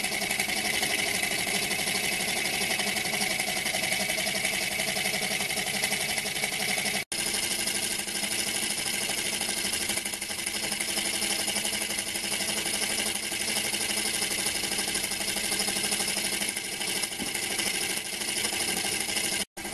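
Small home-built rotary-valve model steam engine (13.5 mm bore and stroke) running steadily on compressed air: a fast, even clatter of exhaust puffs and knocking parts, described as clunky. The thin, light metal plate it sits on vibrates with it and adds to the noise.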